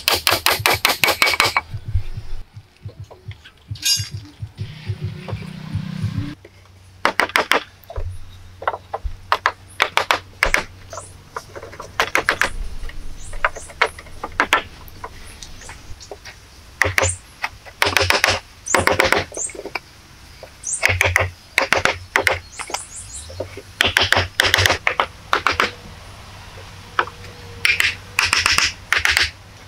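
Hatchet chopping and tapping on wood, in quick runs of sharp knocks with short pauses between.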